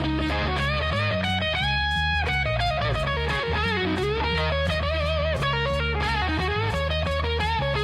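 Background music led by electric guitar, with bending lead notes over a steady bass line.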